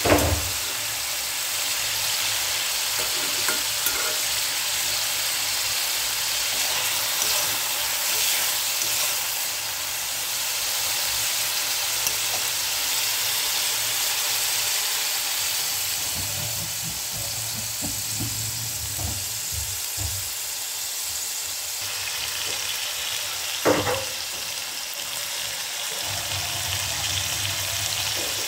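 Food frying and sizzling in hot oil in a pan with a steady hiss, stirred now and then with a scraping sound. There are two sharp knocks of a utensil against the pan, one right at the start and one about 24 seconds in.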